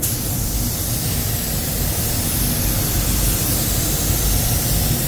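Iwata W-300 WB paint spray gun spraying metallic basecoat with the air set at 1.5: a steady rushing hiss of atomising air that starts abruptly as the trigger is pulled.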